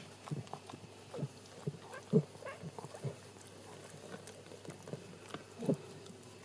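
Newborn Shetland sheepdog puppy making short, irregular grunts and squeaks that drop in pitch, a few louder ones standing out about two seconds in and near the end.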